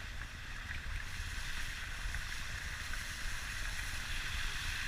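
Wind rushing over the microphone of an action camera mounted outside a moving car, over a steady low rumble from the vehicle and its tyres on the road.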